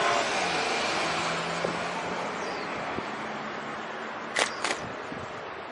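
Road traffic heard from a moving bicycle: a passing motor vehicle's hum and tyre noise fade away over the first few seconds. Two sharp clicks come close together about four and a half seconds in.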